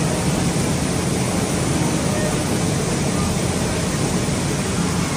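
Fortified-rice production line running: a steady, even machinery noise with most of its weight in the deep end and no change in level.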